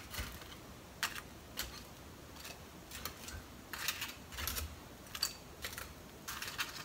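Light, irregular clicks and taps of long wooden cooking chopsticks picking up crisp deep-fried chicken pieces from a wire draining rack and setting them on a plate, a dozen or so faint knocks spread out, a few in quick clusters.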